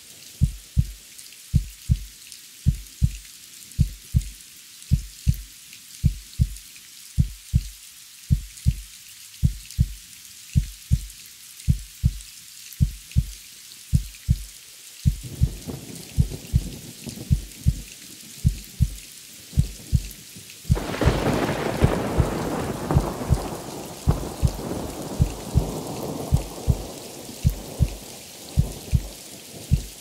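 Heartbeat going in steady double thumps, about one beat a second, over the hiss of falling rain. Thunder rumbles in about halfway, and a loud thunderclap breaks about two-thirds of the way through, rumbling away over several seconds.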